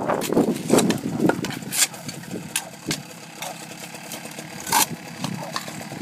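A steady engine hum running at idle, with scattered sharp knocks and rustling; the rustling is loudest in the first second.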